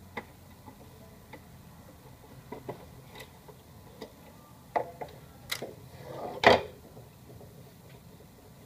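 Scattered clicks and light knocks of a screwdriver working at screws and plastic parts in a laser printer's casing, with a louder clatter about six and a half seconds in.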